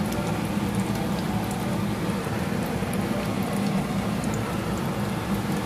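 Shami kababs deep-frying in hot oil: a steady sizzle with small scattered crackles, and a low steady hum underneath. The oil is still foaming around the freshly added kababs while they set underneath.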